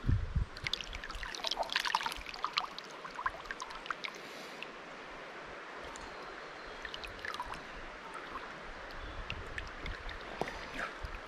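River water running and splashing, with a cluster of small splashes and drips in the first few seconds. A low bump sounds right at the start.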